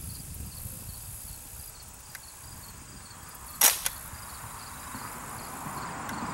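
A single shot from an Umarex M1A1 Thompson-style CO2 BB gun fired on semi-auto: one sharp pop about three and a half seconds in, followed a moment later by a fainter click.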